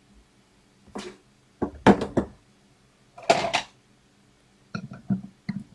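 Pliers being handled on a workbench mat: a few short knocks and scrapes, the loudest about two seconds in, and a quick run of small clicks near the end.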